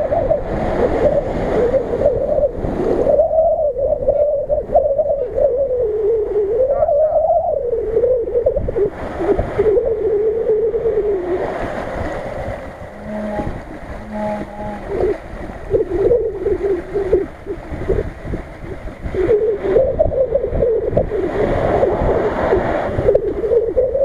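Off-road Nissan Patrol's engine revving up and down under load as it wades through a river and climbs a steep bank, its note rising and falling continually, with water splashing and wind rumbling on the microphone. The engine note drops away briefly around the middle.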